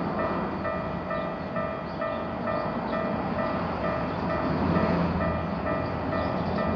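Japanese level-crossing electronic warning bell ringing in a steady rapid repeat, about three dings a second, over the rumble of a Keikyu train running past on the rails.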